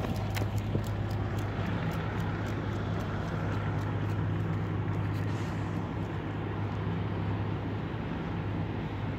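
Steady low hum of an idling engine, with quick footsteps tapping on pavement that stop about halfway through.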